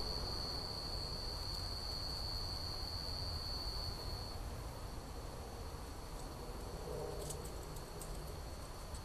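Cricket trilling: one steady high-pitched trill that drops to a fainter level about four seconds in, over a faint low rumble.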